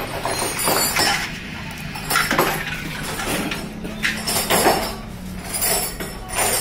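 Metal tools and parts clinking and knocking against one another during gearbox assembly, in about ten irregular strikes, with a faint steady low hum underneath.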